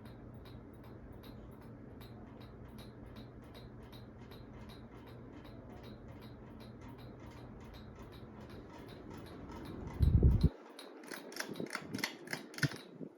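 1994 Celestique 52-inch ceiling fan running with a steady hum and a light, even ticking about three times a second. About ten seconds in there is a loud thump, the hum stops, and a few louder clicks follow.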